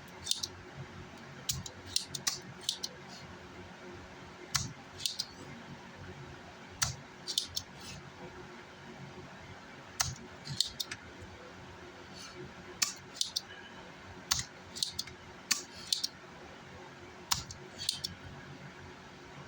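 Irregular sharp clicks and light scrapes in small clusters: small metal hand tools working on an amplifier circuit board. A faint steady hum runs underneath.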